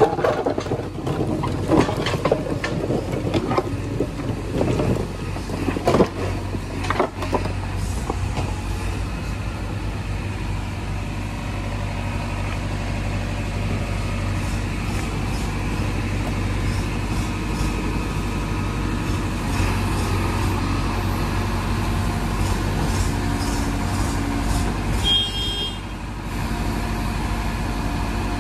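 Heavy diesel engine of a JCB 3DX backhoe loader running steadily while it works. Sharp knocks and clanks of rock and metal come over the first seven seconds or so, and a brief high-pitched tone sounds near the end.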